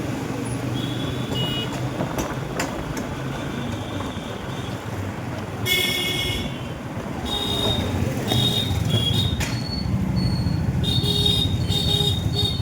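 Road traffic heard from a moving motorcycle: a steady engine and road noise with vehicle horns honking over it. The loudest honk comes about six seconds in, and short repeated honks follow through the second half.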